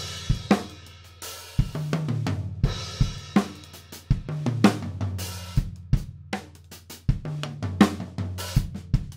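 Natal Originals walnut drum kit played with sticks: a busy groove and fills moving across snare, toms and kick, with ringing tom tones and cymbal crashes. The kit is heard raw on its stock heads, with no EQ or compression.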